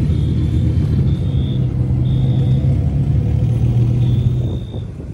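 Lamborghini Huracán's V10 running at low revs as the car pulls slowly past, a steady deep drone that fades away near the end.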